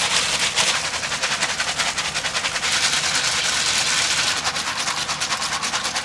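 Ice and salt clattering inside a plastic grocery bag shaken hard and fast, a rapid even rattle of many hits a second. A small bag of cream is being churned into ice cream in the salted ice.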